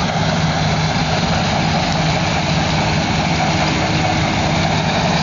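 Combine harvester running close by: a loud, steady engine drone with a constant low hum under the noise of its machinery.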